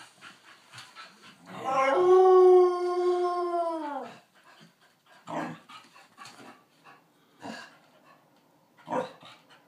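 Dogs begging to be fed: one long howl of about two seconds, held on one note and then falling in pitch as it dies away, followed by three short barks a couple of seconds apart.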